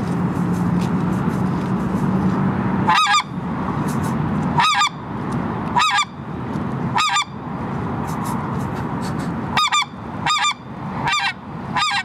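JB goose call blown in a series of short yodeled honks, each breaking sharply up in pitch and cut off abruptly. They come singly about a second apart, then in a quicker run near the end. The yodel is driven from the throat with very little air, the way a goose call is worked for long-range calling.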